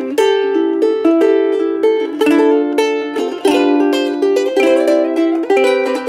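G-Labo thin-body soprano ukulele with acacia AAA top, sides and back, strummed in a run of ringing chords. Near the end the strumming quickens into an even rhythm.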